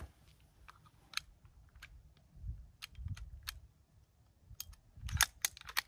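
Scattered sharp metallic clicks and rattles of a big-bore air pistol being handled and loaded, with a quick cluster of clicks near the end, over low wind rumble on the microphone.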